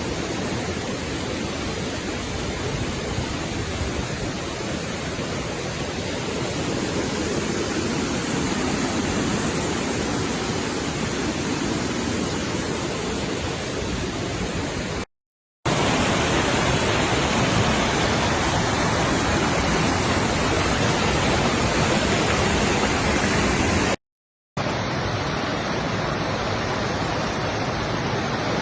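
Mountain stream water rushing steadily. The sound cuts out abruptly twice, about fifteen and about twenty-four seconds in, and the rushing resumes after each cut.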